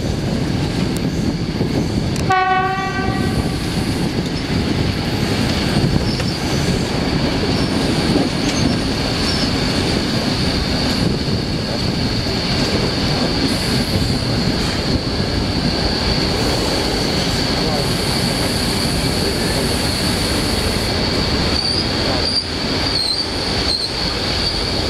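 Passenger train running slowly round a curve, heard from on board: a steady rumble of wheels on rail with a continuous high-pitched wheel squeal on top. A short horn blast sounds about two and a half seconds in.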